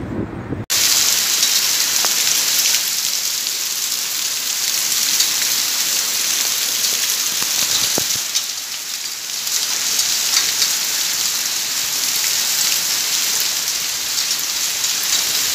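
Heavy rain pouring down onto a wet street, a steady dense hiss that begins suddenly about a second in.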